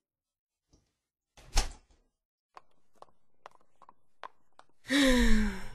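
A single thud about a second and a half in, then a few faint taps, then near the end a loud, breathy sigh from a voice, its pitch falling.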